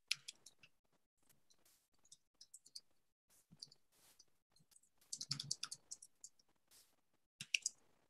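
Faint typing on a computer keyboard: irregular clicks in quick clusters, densest about five seconds in and again just before the end.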